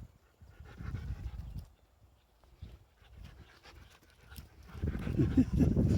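A dog panting in short stretches close by, with a lull in the middle and louder, steadier panting near the end.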